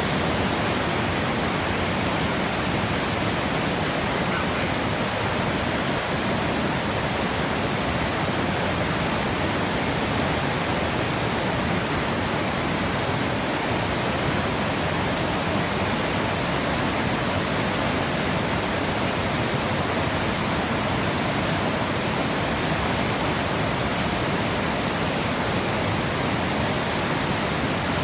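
Rushing water, a steady, unbroken rush with no changes.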